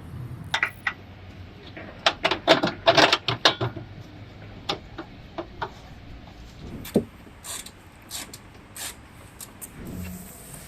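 Irregular clicks and knocks of hard objects being handled, with a quick run of them about two to four seconds in and scattered single ones after.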